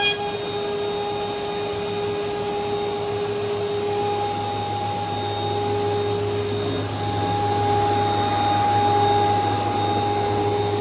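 Woodworking moulder machine running steadily: an even mechanical noise carrying a steady hum and a couple of constant whining tones.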